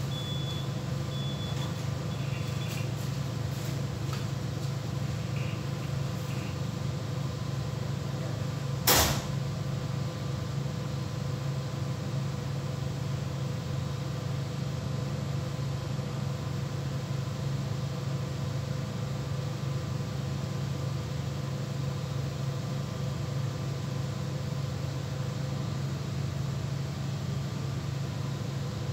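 Steady low mechanical hum of machinery, with one sharp click about nine seconds in.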